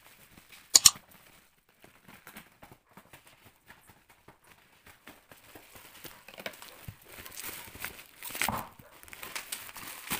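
A sharp double click of scissors cutting about a second in, then scattered small ticks. From the middle on, plastic bubble wrap crinkles and rustles as it is handled and pulled off a parcel, loudest a little before the end.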